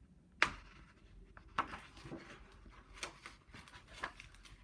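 Pages of a hardcover picture book being handled and turned: a sharp tap about half a second in, then soft paper rustles and light taps.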